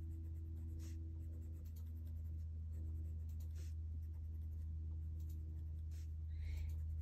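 Black colored pencil shading on drawing paper: soft, irregular scratching strokes, over a steady low hum.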